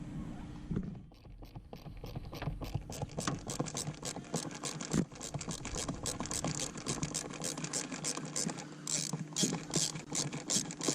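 Hand ratchet clicking rapidly and evenly, about four or five clicks a second, as screws on the blower cover are turned.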